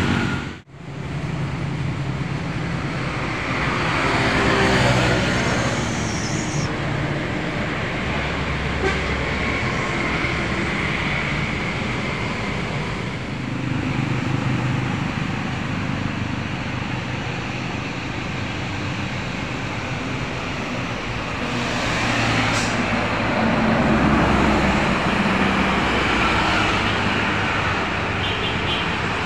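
Road traffic driving past: cars, motorcycles and buses with engine and tyre noise, swelling as vehicles go by about four seconds in and again near the end. The sound drops out for a moment just after the start.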